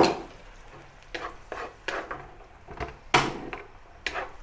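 Wooden spatula scraping and stirring wet spice paste around a non-stick wok, several irregular strokes, the loudest about three seconds in, over a light sizzle of the paste frying in oil.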